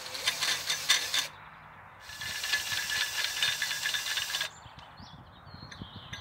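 Cordless drill running in two bursts: one that stops about a second in, then another of about two and a half seconds, with a rattly hiss.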